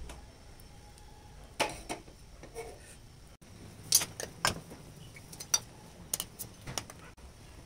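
Gas stove burner being lit: the knob turning and a few sharp igniter clicks, then several light metallic clinks against a steel cooking pot.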